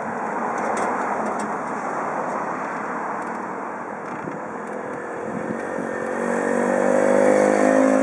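Cars driving over a railway level crossing, with a spread of tyre and engine noise. About six seconds in, a steady pitched engine drone comes in and grows louder.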